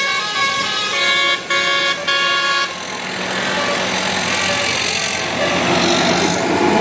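A bus's multi-tone telolet horn (Basuri style) playing a quick tune in short stepped notes, with two brief breaks, stopping about two and a half seconds in. After that the bus's engine and road noise carry on and grow louder toward the end.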